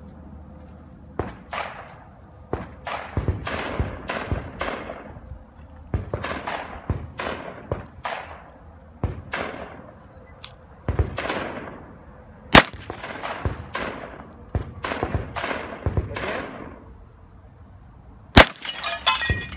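Gunfire: a long series of shots, roughly one every second, each trailing off in an echo. Two sharper, closer cracks come about twelve and a half and eighteen and a half seconds in, and the second is followed by a brief rattling clatter.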